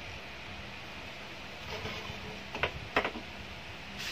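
A few sharp clicks of small plastic laser-printer parts being handled during disassembly, two of them close together in the second half, over steady low background noise.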